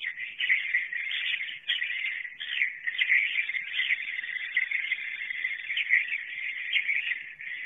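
Swiftlets' night roosting call (suara inap malam): a dense, unbroken chatter of high twittering chirps from many birds, the sound swiftlet farmers use to draw birds to roost in a swiftlet house.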